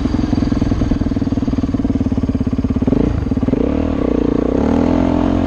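Dirt bike engine running under steady throttle, then about three seconds in the revs dip briefly and pick up again, rising and falling.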